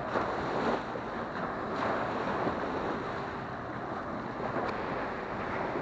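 Small waves washing up onto a sandy shore, with three louder surges of surf, about two seconds apart at first, over a steady wash.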